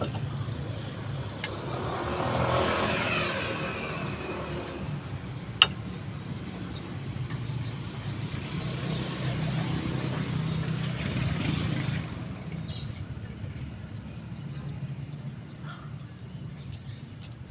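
Road traffic: a steady low hum with vehicles passing, swelling and fading twice, and one sharp metallic click about five and a half seconds in.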